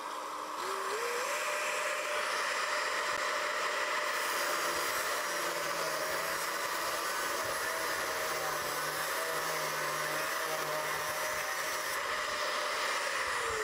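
Angle grinder with an abrasive cut-off disc cutting through a carbon steel bar about 30 mm thick, the disc moved up and down over the cut; a loud steady grinding hiss over the motor's whine. The motor rises to full speed in the first second or so, and its pitch falls as it winds down near the end.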